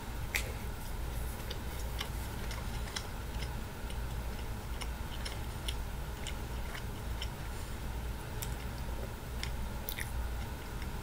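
A person biting into and chewing a soft pizza slider close to the microphone: small irregular mouth clicks and smacks, over a steady low hum.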